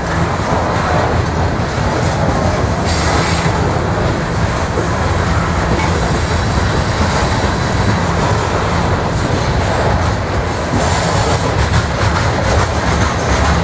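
Loaded coal hopper cars of a BNSF coal train rolling past close by: a steady rumble and clatter of steel wheels on the rails, with a brighter hiss from the wheels for a moment about three seconds in and again near the end.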